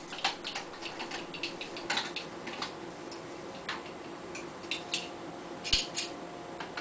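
Irregular light clicks and taps of hard plastic: a jug of liquid and its small measuring cap being handled, opened and set down, with a few sharper knocks about two and six seconds in.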